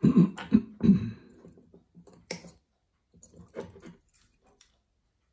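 Close handling of a metal pocket-watch case and thin binding wire being twisted round its hinge: a few loud, low rubbing thumps in the first second, a sharp metallic click a little past two seconds, then light ticks.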